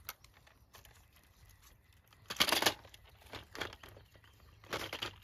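Dry leaf litter rustling and crackling as it is disturbed by hand, in short bursts, the loudest about two and a half seconds in and another near the end.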